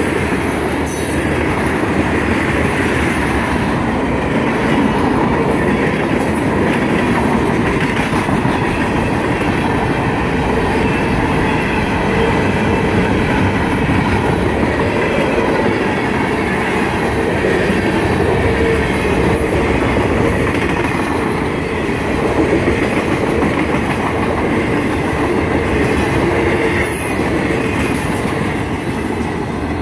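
Freight train cars rolling past close by at track speed: a steady, loud rolling clatter of steel wheels on the rails, easing slightly near the end as the train thins out.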